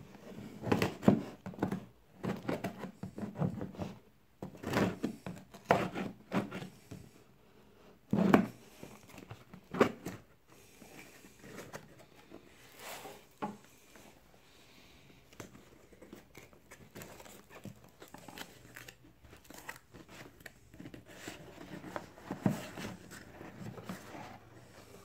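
Craft knife slitting packing tape on a cardboard box, then the cardboard flaps being pulled open and the box handled: irregular scrapes, tears and rustles, loudest and densest in the first ten seconds, quieter after.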